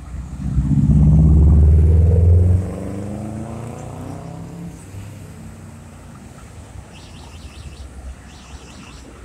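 A motor vehicle driving past close by, its engine loud for about the first two and a half seconds, with its pitch rising as it accelerates, then fading into the street background.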